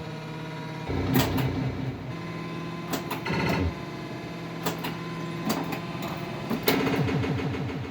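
Williams Alien Poker pinball machine in play: a string of sharp clacks from its flippers and bumpers firing, over the machine's electronic sound-effect tones, some held steady and some stepping quickly in pitch.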